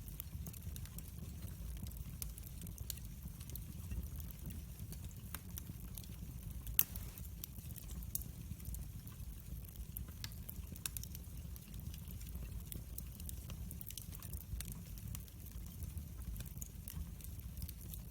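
Wood fire in a fireplace crackling, with many small irregular snaps over a low steady rumble and one sharper, louder pop about seven seconds in.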